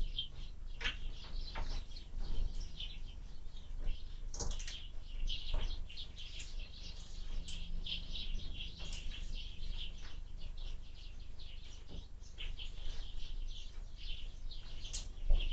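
Small birds chirping almost without pause at a window bird feeder, with occasional short knocks and wing flutters, over a low rumble of wind.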